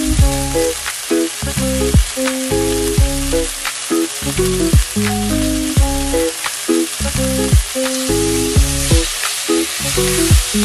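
Sliced beef sizzling in oil in a stainless steel frying pan, a steady hiss under background music with a deep beat about once a second and short melodic notes.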